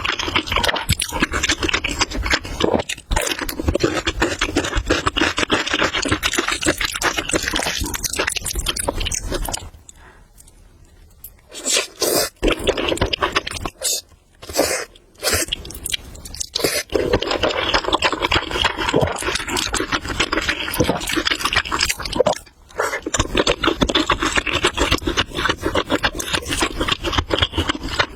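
Close-miked eating of noodles: long runs of wet, crackly slurping and chewing, broken by a quieter pause about ten seconds in and a few short bursts before the eating resumes in long runs.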